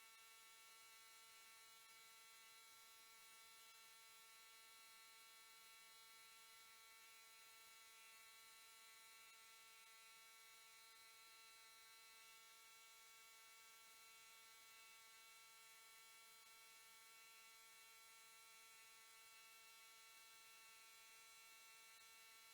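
Near silence: a faint, steady electrical hum with a high hiss, unchanging throughout.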